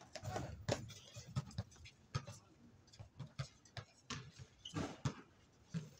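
Basketball being dribbled on an outdoor hard court, an uneven run of thumps mixed with players' running footsteps on the concrete.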